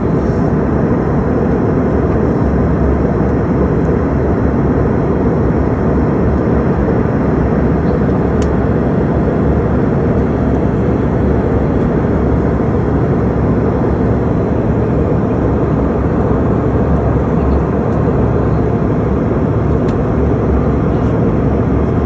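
Jet aircraft noise, a loud, even rumble of engines and airflow that holds steady with no change in pitch or level.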